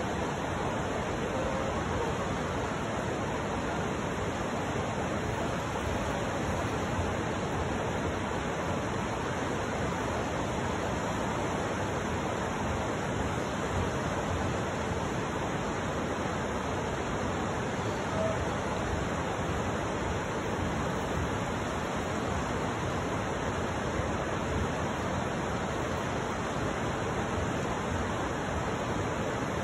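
River water rushing steadily: an even, unbroken hiss that holds the same level throughout.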